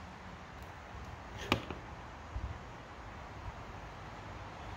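One sharp click about a second and a half in, then a couple of faint taps a little later, against a low steady background.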